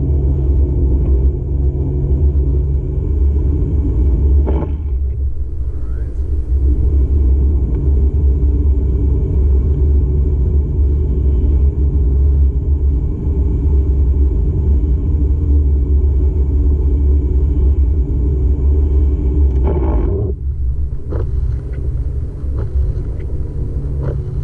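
A car driving, heard from inside the cabin: steady low rumble of engine and road noise, with a brief louder sweep about four and a half seconds in and another near twenty seconds.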